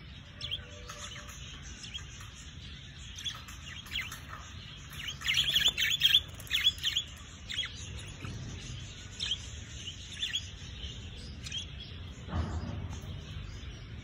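Caged budgerigars and lovebirds chirping in short, high calls, busiest and loudest about five to seven seconds in.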